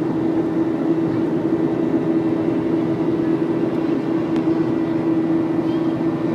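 Airliner cabin noise in flight: a steady hum of engines and rushing air, with a strong low drone and a thin high whine held throughout.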